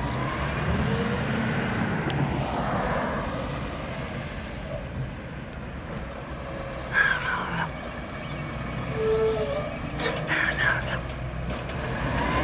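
Diesel engine of a Mack garbage truck with a McNeilus front-loader body running at street speed, with brief air-brake hisses partway through.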